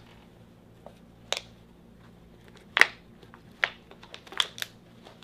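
Several short, sharp snaps and clicks, the loudest about three seconds in: elastic hair ties being stretched and snapped around socks pulled over empty plastic water bottles.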